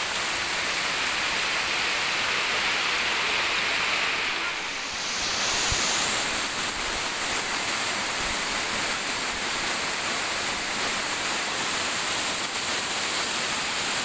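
Steady rush of waterfall water pouring and splashing over rock, with a short dip about five seconds in.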